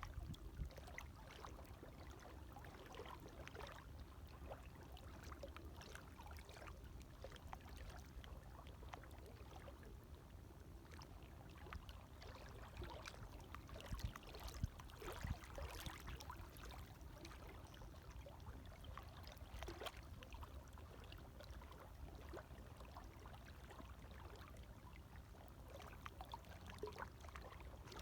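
Gentle small waves lapping, a faint steady wash with many little splashes and trickles, a few slightly louder splashes midway.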